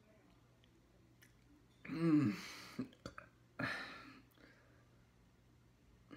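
A person burps once, a short voiced burp that rises and falls in pitch, after gulping down glasses of water; a few small mouth clicks and a breathy exhale follow.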